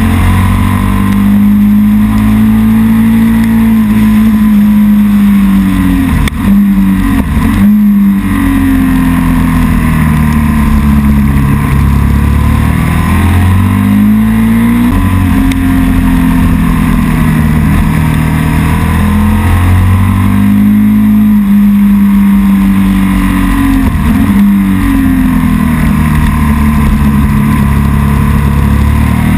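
A vehicle engine running hard at high revs, its pitch swelling and sagging slowly over several seconds, with a brief dip about six seconds in.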